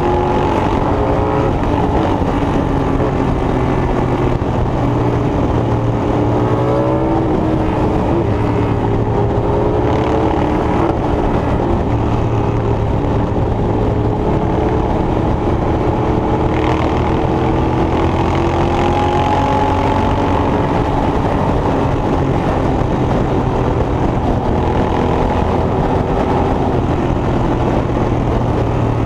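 Sawmill machinery running steadily: a constant low engine hum under a whine that wavers up and down in pitch.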